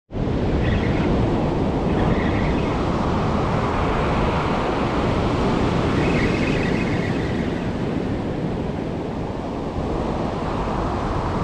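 Ocean surf breaking and washing up a sandy beach, a steady rush of noise, with wind on the microphone.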